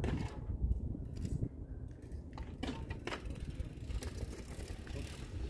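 Mountain bike riding across a bare sandstone slab, its tyres rolling over the rock with scattered clicks, over a steady low rumble.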